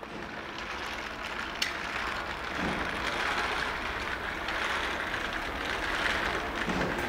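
Wire shopping cart rolling over a hard store floor, with a steady rattle from its wheels and basket.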